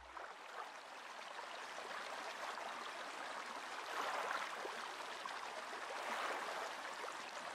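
Running water: a steady rushing hiss that swells and eases a little.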